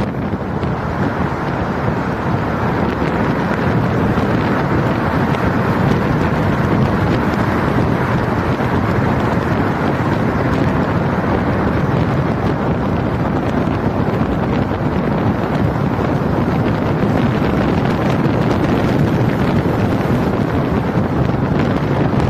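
Steady rush of wind on a car-roof-mounted microphone, mixed with the car's road and traffic noise while driving through a highway tunnel. It grows slightly louder over the first few seconds as the car enters the tunnel.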